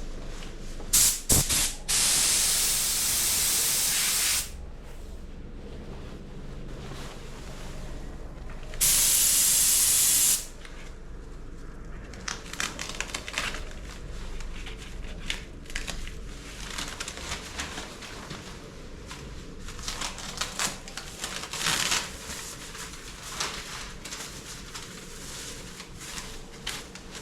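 Paint spray gun hissing with compressed air as a second coat of clear lacquer goes on: two long, loud bursts in the first ten seconds, then many shorter, fainter on-and-off passes.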